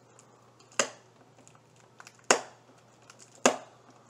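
Sharp cracks of a flimsy cardboard box being pried open by hand, three of them about a second and a half apart, with faint crinkling and ticks of the packaging between.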